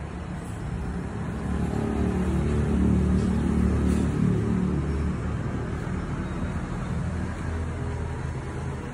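Low engine rumble of a motor vehicle, swelling over the first few seconds and then easing to a steady run.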